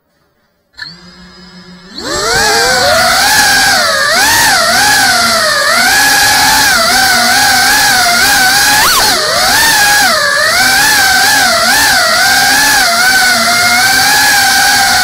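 GEPRC CineLog35 cinewhoop's brushless motors and ducted propellers, heard close up from the drone's own camera: quiet and low at first, then about two seconds in a loud whine whose pitch rises and falls constantly with the throttle, with one sharp pitch swing near the middle.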